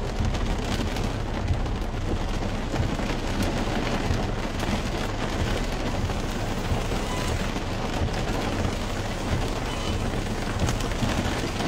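Heavy downpour of rain pattering on a car's roof and windshield, heard from inside the cabin: a steady, dense hiss of many fine drop impacts.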